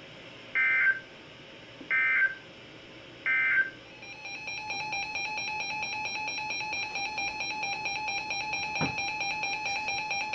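Emergency Alert System signalling: three short, evenly spaced bursts of screechy digital SAME code, then a steady electronic attention tone that fades in about four seconds in and keeps sounding, marking the start of the next warning.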